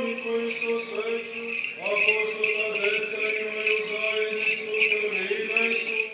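Orthodox liturgical chanting of long held notes, shifting to a new pitch about two seconds in, over the quick repeated jingling of the small bells on a swung censer. It cuts off suddenly at the end.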